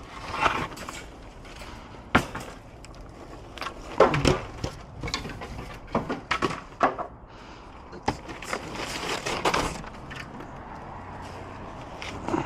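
Irregular knocks and clatters of scrap wood from a demolished chicken coop being picked up and dropped, with a longer rustling scrape about nine seconds in.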